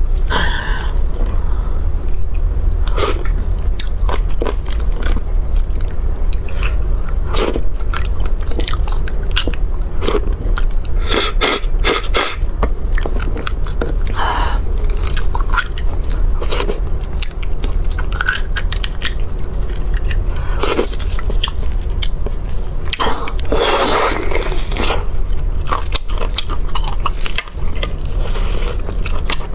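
Close-miked chewing, biting and wet lip-smacking of a person eating braised beef bone marrow and shank meat, with many short mouth clicks over a steady low hum.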